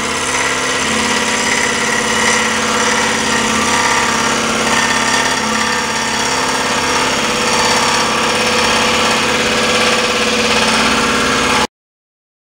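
Scroll saw running with a spiral blade, cutting through a solid wooden cylinder: a steady, loud mechanical buzz that cuts off suddenly near the end.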